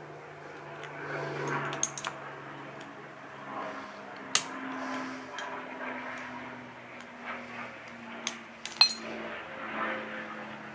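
Small metal carburetor parts clinking and clicking as they are handled and fitted, with a few sharp clicks, the loudest about nine seconds in.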